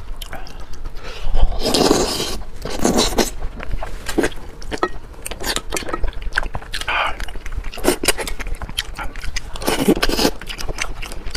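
Close-miked mukbang eating sounds: a man sucking and chewing stewed fish head from chopsticks, with a run of wet lip smacks and clicks and a few longer sucking noises, the loudest about two seconds in and again near the end.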